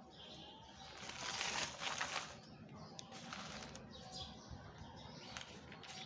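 Paper notebook pages rustling and flapping as a hand turns them over and smooths them down, in a few short bursts, the longest about a second in.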